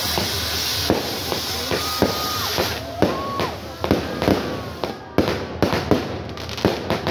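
Fireworks going off on a castillo, a festival fireworks tower: a loud hiss of spraying sparks, then a quickening series of sharp firecracker bangs and crackles from about three seconds in. A couple of brief whistles sound in the first half.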